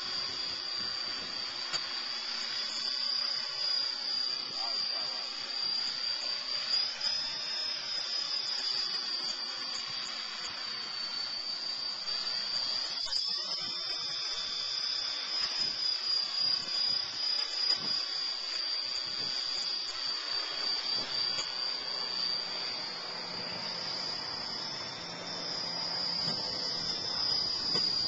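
Align T-Rex 450 electric RC helicopter hovering, its motor and gears giving a steady high-pitched whine that wavers a little in pitch with the throttle, over the whoosh of the rotor blades.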